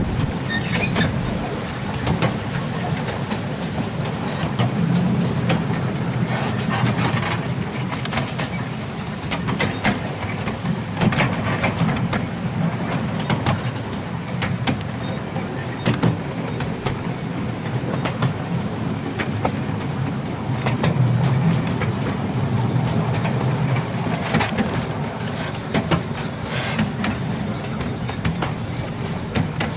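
A 7¼-inch gauge miniature railway train running along its track: a steady low rumble of the wheels and carriages, with irregular sharp clicks and clacks.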